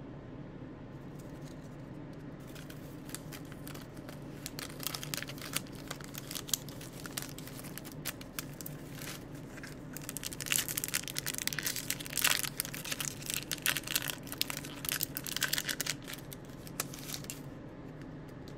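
Foil wrapper of a baseball card pack being torn open and crinkled by hand, with cards shuffled against it: a run of dry crackles that grows louder past the middle and stops shortly before the end.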